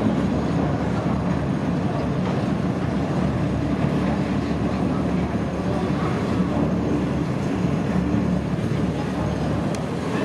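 Emerald-class catamaran ferry's engines rumbling steadily and its propellers churning the water as it manoeuvres alongside the wharf to berth.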